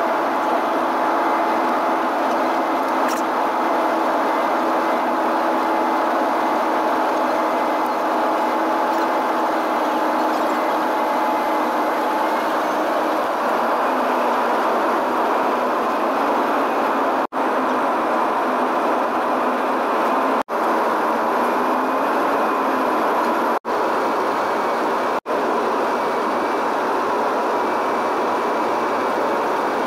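Airliner cabin noise from a window seat on approach: a steady rush of engines and airflow with a constant engine hum, which shifts slightly higher about halfway through. The sound drops out for an instant four times in the second half.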